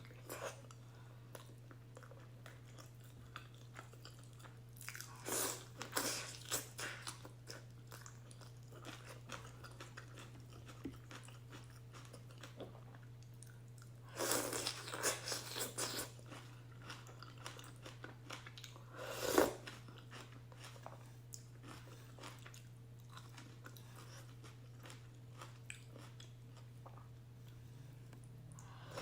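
Close-miked eating of beef and egg ramen noodles: bouts of chewing and biting, with one sharper louder mouth sound about two-thirds of the way in, over a steady low hum.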